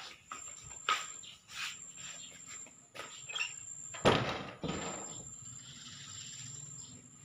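Scattered light clicks and scuffs of someone walking on a tiled floor while handling a phone, with one louder scraping knock about four seconds in, over a faint steady high-pitched whine.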